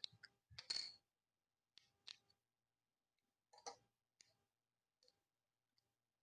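Faint, scattered clicks and taps of small plastic snap-fit model-kit parts being handled and pressed together, the loudest cluster about a second in and a few lighter ones over the next four seconds.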